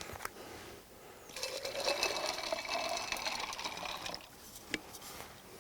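Iced tea poured into a tumbler for about three seconds, starting just over a second in, followed by a single light click.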